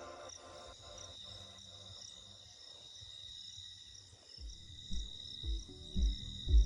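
Background electronic music drops to a quiet break: fading repeated notes over a steady high trill like crickets, then deep bass beats come back in near the end.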